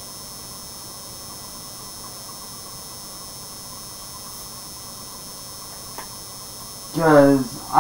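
Ring light's steady electrical buzz and hum, with thin high tones held level above it.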